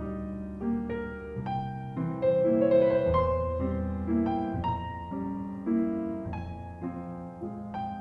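Piano playing a melody over held chords, new notes struck about every half second to a second.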